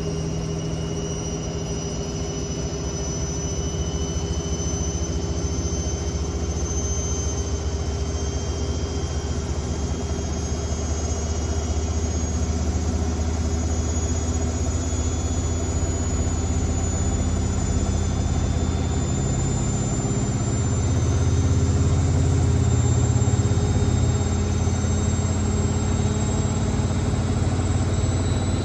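Hotpoint WML540 Aquarius washing machine in its final spin with the door open: the drum spinning fast with a steady motor drone and a high whine that climbs slowly in pitch. The low drone gets louder about twenty seconds in.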